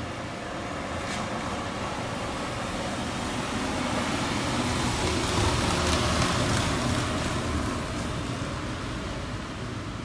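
A road vehicle passing on the street, its noise swelling to a peak about six seconds in and then fading away.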